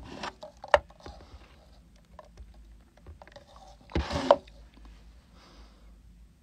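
Handling noises close to the microphone: scattered clicks and taps, a sharp click just under a second in, and a louder rustling burst about four seconds in.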